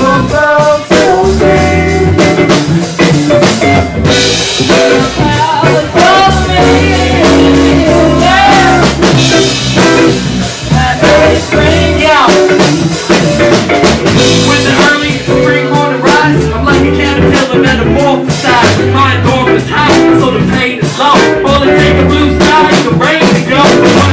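Live jazz-funk and hip-hop band playing: drum kit, electric guitar and bass guitar, with a voice singing a melody over them.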